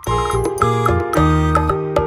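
Cheerful background music with a bass line and a steady beat.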